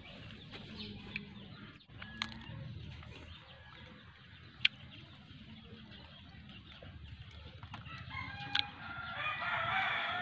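A rooster crowing near the end, one long call of about two seconds, over chickens clucking in the background. A few sharp clicks come earlier.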